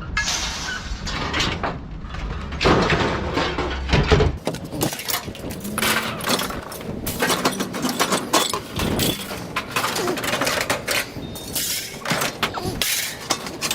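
Irregular clattering and banging of junk and scrap being handled and thrown, with a steady low rumble underneath for the first few seconds.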